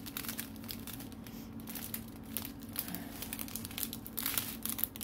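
Clear plastic zip-lock bags of diamond-painting drills crinkling in irregular bursts as they are handled, over a steady low hum.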